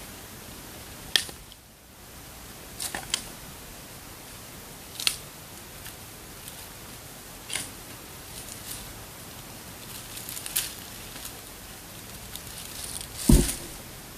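Scattered sharp clicks and taps over a steady hiss, with a heavier thump near the end; the chainsaw motor is not running.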